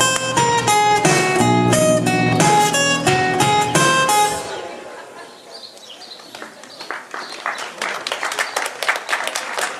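Two acoustic guitars playing a picked melody that ends about halfway through. After a short lull, audience applause builds and continues.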